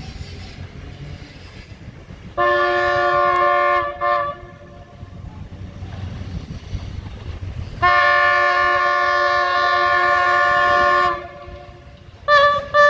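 Horn of an approaching DB Class 628 diesel multiple unit sounding two long multi-tone blasts, the first about a second and a half, the second about three seconds, with a low engine rumble between them. Short repeated horn toots begin near the end.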